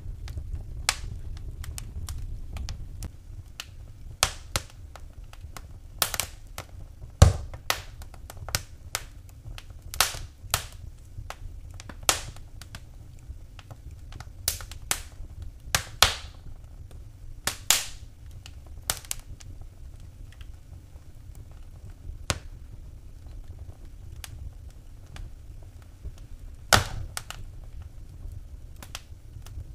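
Wood fire burning in a fireplace, crackling with irregular sharp pops and snaps, a few much louder than the rest, over a steady low rumble of the flames.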